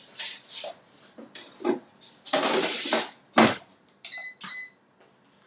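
Rustling and clatter as an air fryer is loaded, and a solid clunk about three and a half seconds in as it is shut. Then come two short electronic beeps from its control panel.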